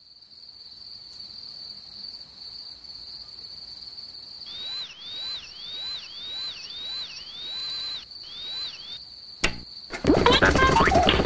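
A thin, steady high-pitched whine, joined about four seconds in by a run of repeated chirps, roughly one and a half a second. A sharp click near the end, then a sudden loud burst of noise.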